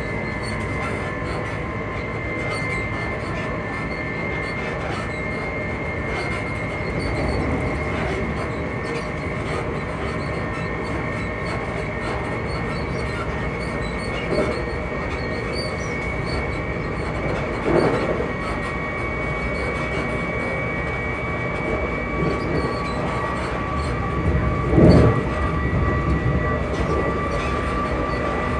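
Class 334 electric multiple unit's traction motors humming while under way, a few steady whining tones over the train's running rumble, one tone climbing slightly past the middle. A few short thumps break through, the loudest near the end.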